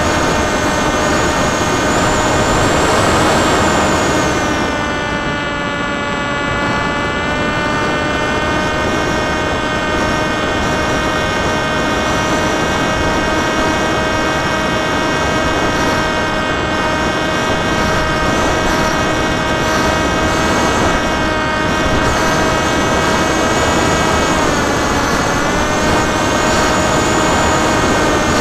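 Electric motor and propeller of a Popwing foam flying wing running in flight, picked up by its onboard camera with wind rush over it: a steady whine whose pitch drops about five seconds in as the throttle eases, comes back a couple of seconds later, and dips briefly again near the end.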